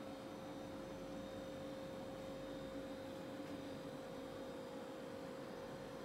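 Faint steady hum with one held mid-pitched tone over a light hiss: room tone, with no distinct events.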